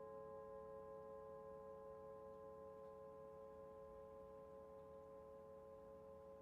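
Faint singing bowl ringing on with a few steady, slightly clashing tones, fading slowly after an earlier strike.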